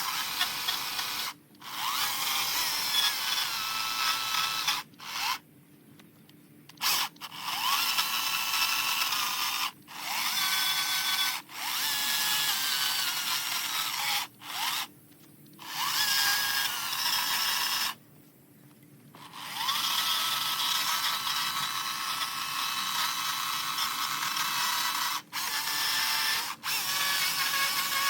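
A handheld electric power carving tool run in repeated bursts of one to several seconds with short pauses between, its pitch rising as the motor spins up at each start, working the cedar carving.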